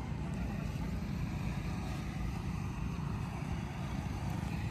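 Steady low rumbling noise with no distinct events, flickering unevenly.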